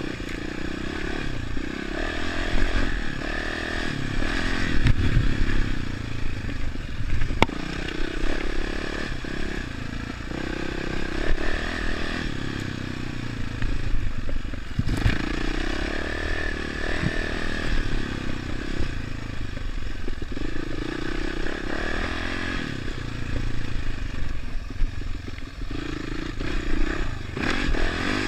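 Dirt bike engine running and revving up and down while ridden over a rough off-road track, with scattered knocks and clatter from the bike over bumps.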